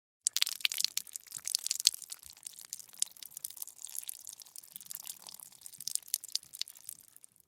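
Gory bleeding sound effect: a dense, irregular crackle of many small clicks that starts suddenly and runs about seven seconds before cutting off.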